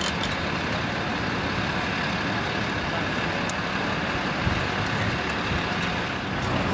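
Steady street traffic noise: a constant rumble and hiss of passing and running vehicles.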